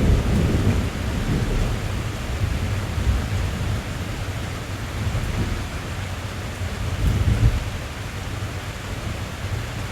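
Steady rain drumming on a car's roof, heard from inside the cabin, with a deep low rumble that swells near the start and again about seven seconds in.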